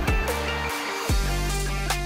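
Instrumental background music with deep, falling bass-drum hits under sustained notes.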